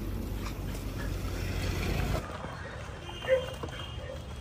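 A street dog gives one short, sharp yelp about three-quarters of the way through, while dogs crowd in to eat. Before it, a low rumbling noise stops abruptly about halfway.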